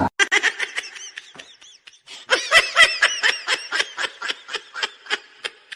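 A rapid run of short, high-pitched vocal squeaks like giggling, sparse at first and then about four or five a second from about two seconds in.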